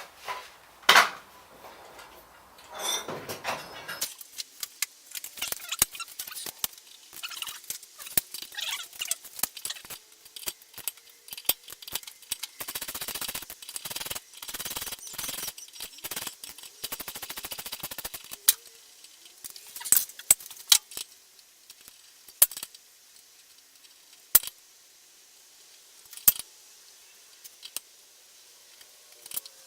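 Metal tools and parts handled during motorcycle wheel work: scattered sharp clicks, clinks and knocks, with a few seconds of denser scraping and rattling in the middle.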